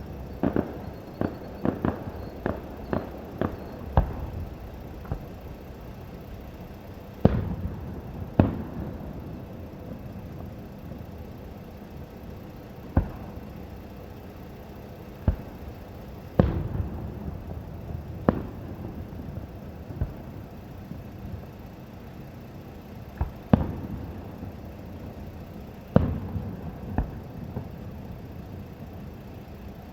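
Aerial fireworks shells bursting. A quick run of about ten bangs comes in the first four seconds, then single booms every few seconds, some followed by a short rumbling echo.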